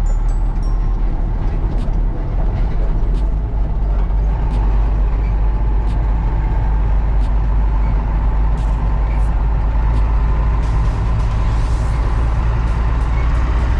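Heavy harvest machinery engine running steadily: a loud, continuous low rumble with a faint whine above it and occasional light clicks.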